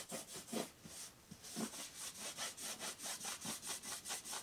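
Cloth rag rubbed back and forth over a wooden board, wiping wet stain off the wood in quick strokes of about four or five a second, with a short pause about a second in.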